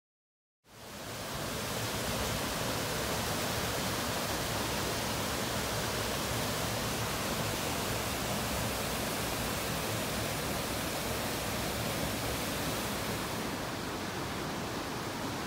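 Steady rush of river water pouring over a concrete dam spillway, starting abruptly less than a second in after silence.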